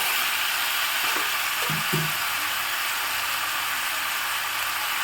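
Chicken pieces with potato and papaya sizzling steadily in mustard oil as they are sautéed with spices, before the water goes in.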